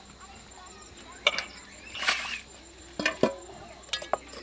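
Aluminium pots and basins knocking and clinking as mushroom pieces are handled and washed: about six sharp knocks, some ringing briefly, with a short swishing burst about two seconds in.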